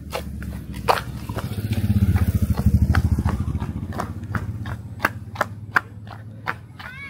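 Footsteps of a person running, a steady rhythm of nearly three steps a second. A low rumble swells up in the first seconds and fades away by about five seconds in.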